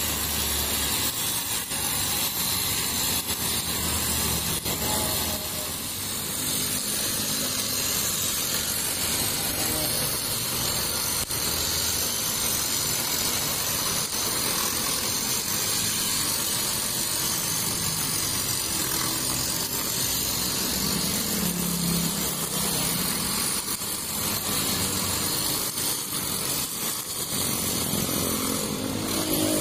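Backpack brush cutter with a Honda GX35 four-stroke engine running steadily under load, its 2.2 mm nylon trimmer line cutting grass.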